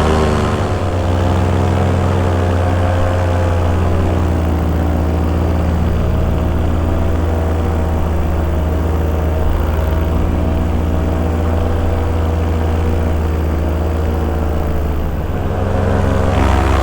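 Two-stroke paramotor engine and propeller running steadily at cruise in flight, sagging slightly in pitch a couple of times.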